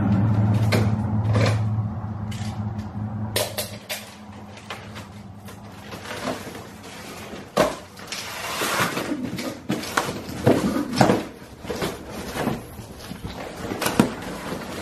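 A long cardboard box is torn open and handled, with irregular rustles, rips and sharp knocks as it is tipped and the steel parts inside shift. A low steady hum fades out over the first couple of seconds.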